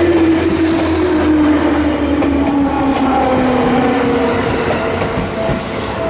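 Seibu Tamagawa Line electric commuter train passing close by at a level crossing: a loud rumble of wheels on the rails with some clatter over joints, and a motor whine that glides steadily down in pitch. The crossing's warning bell rings underneath.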